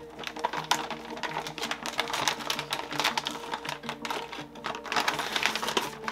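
Metallized anti-static bag crinkling in rapid crackles as a graphics card is lifted out and slid out of it, with soft background music underneath.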